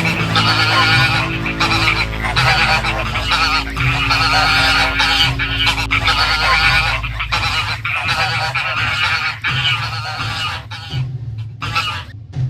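Goose honks, many at once and overlapping, over a held low drone that stops about seven seconds in. Near the end the honks thin out into separate calls.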